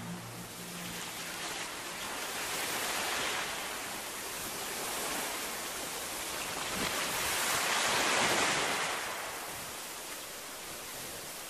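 Wind blowing through a field of ripe wheat: a steady rushing that swells in gusts, most strongly around eight seconds in, then eases.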